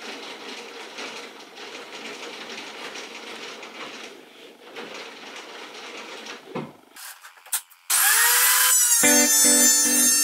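Low, steady workshop noise with a few light knocks as boards are handled at a benchtop thickness planer, then a swooshing transition effect about eight seconds in, followed by music with steady repeated notes, the loudest part.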